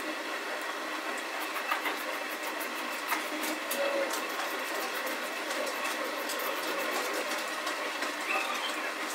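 A steady mechanical whirring, like a machine running, with scattered sharp clicks, most of them between about one and a half and four seconds in.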